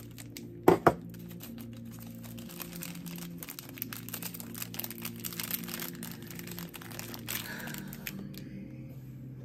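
Two sharp knocks about a second in, then plastic packaging crinkling and crackling as a package is handled and opened.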